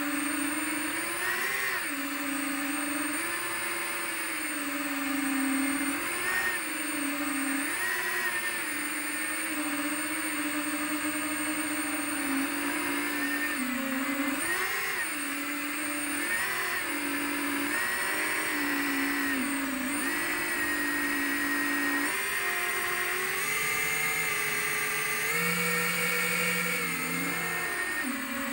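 FPV quadcopter's electric motors and propellers whining up close, the pitch rising and falling every second or two as the throttle is worked, and held higher for a few seconds near the end.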